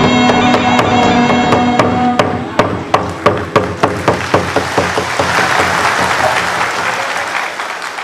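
Traditional-style music with a held wind-instrument melody and drums that stops about two seconds in, followed by a run of sharp evenly spaced strikes, then audience applause in the second half, fading near the end.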